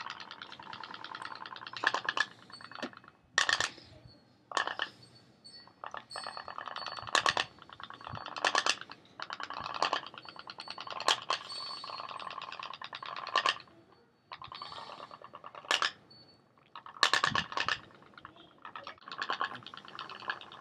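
Toy pop-pop steam boat engine running: a rapid popping tick that comes and goes unevenly, with louder sharp knocks every second or two. It runs rough, which the owner puts down to the wind cooling the boiler too much.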